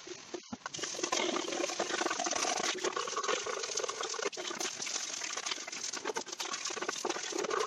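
Washing and scrubbing a dirty exhaust heat shield with degreaser and water: a steady wash of noise with scattered small clicks, broken briefly about half a second in.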